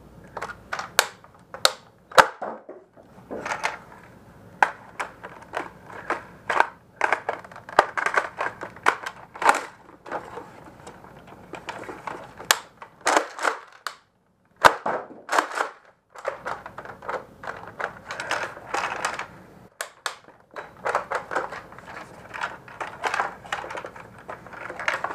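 Nerf Rival Atlas XVI-1200 pump-action blaster being primed and fired, a string of sharp plastic clacks and shots at irregular intervals.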